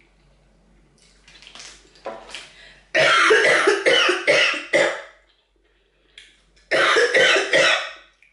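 A person coughing hard in two fits, the first about three seconds in and the second near the end, each several coughs in quick succession. The coughing is set off by the heat of very spicy hot-chicken-flavoured instant ramen.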